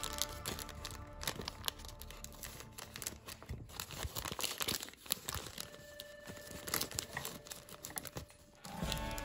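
Origami paper crinkling and rustling in the hands as a pleated, precreased sheet is folded and collapsed, with many small irregular crackles.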